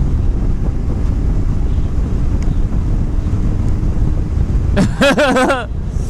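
Wind buffeting a helmet-mounted microphone on a moving motorcycle, a steady low rumble. About five seconds in, a short wavering pitched sound cuts through the wind for under a second.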